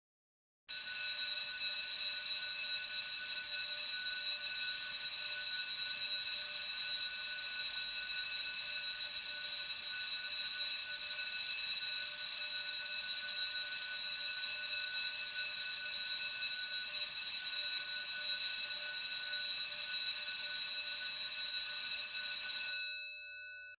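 School bell ringing continuously, a steady bright ring of many high tones. It starts abruptly, holds for about twenty-two seconds, then stops suddenly, leaving a brief fading ring.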